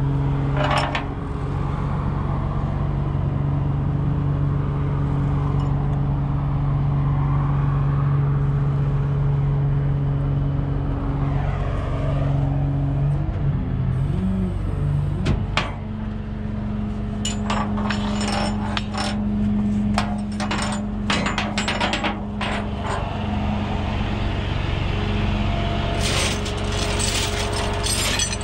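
Tow truck's engine running with a steady hum, its pitch rising and settling higher about halfway through. Over it, from a little past halfway, a run of irregular metal clinks and knocks from the tie-down strap and its hardware being fitted to the back of the towed car.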